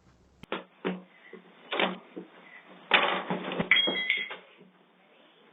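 A front door being worked by hand: a few knocks, then a stretch of rattling, with a short electronic beep from the door's keypad lock about four seconds in.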